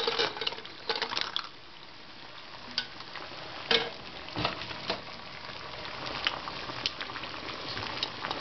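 Ping pong balls dropped into a saucepan of hot water, knocking on the pot and each other in a quick run of light clicks, then a few single taps, over the steady hiss and bubbling of the water. The hot water is meant to pop the dents out of the balls.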